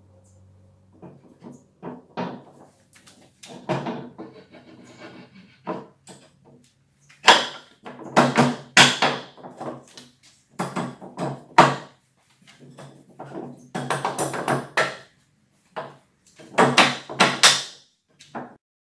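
Solid-wood shelf parts knocking and scraping against each other as a shelf board's tenons are worked into the mortises of the bookshelf legs by hand. The sound comes as several clusters of sharp wooden knocks.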